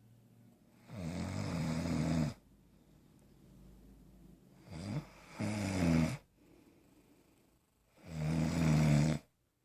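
Loud snoring: three long snores, each lasting about a second, roughly every three and a half seconds, with quiet breathing between them. The middle snore starts with a short catch before the main one.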